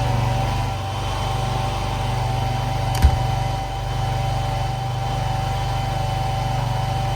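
Engine idling steadily with a low pulsing rumble, and one sharp click about three seconds in.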